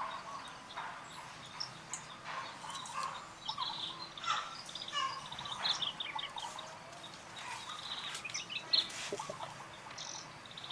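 Birds chirping: many short overlapping chirps and trills over a faint steady hiss of outdoor background.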